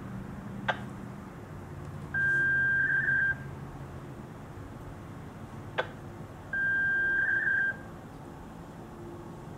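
Two long, steady electronic beeps about four and a half seconds apart, each ending in a short wobble, with a sharp click a second or so before each, over a low steady rumble. At the very end the ASC T-128 siren's rotor starts to wind up.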